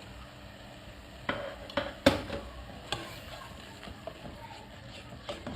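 A spoon stirring a tomato and spice curry base in a cooking pot, knocking against the pot about six times, the loudest knock about two seconds in, over a faint sizzle.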